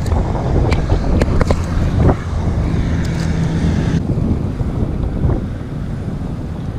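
Wind buffeting the microphone as a steady low rumble, with a few light clicks in the first two seconds.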